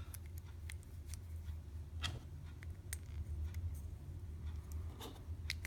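Scattered light clicks of small plastic Lego minifigure parts being handled and pulled apart, over a steady low hum.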